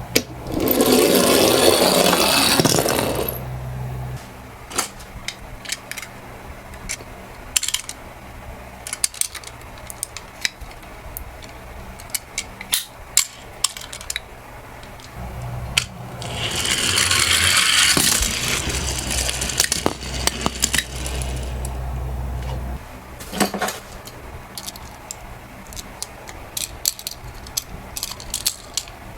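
Toy minicars rolling down a sloped toy track in two long rattling runs, one at the start and one about halfway, with scattered sharp clicks and clacks of the little cars knocking together in between.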